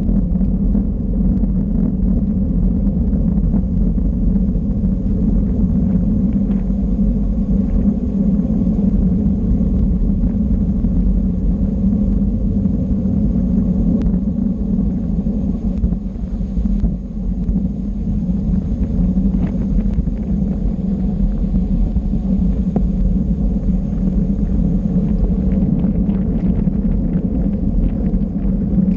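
Steady wind rumble on the microphone of a camera riding along on a bicycle at race speed, mixed with tyre and road noise, with a brief lull about two-thirds of the way through.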